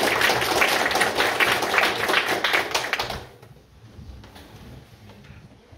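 A small audience applauding, the clapping ending about three seconds in.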